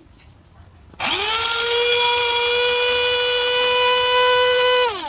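Small Nima electric grinder (mini mixer grinder) switched on about a second in: its motor spins up to a steady high whine while grinding broken biscuits to powder. It is switched off near the end and winds down, falling in pitch.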